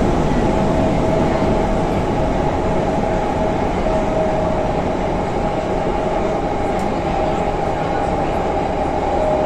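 81-572 metro car running at speed on line M1, heard from inside the car: a loud, even rumble of wheels on rail with a steady whine held at one pitch.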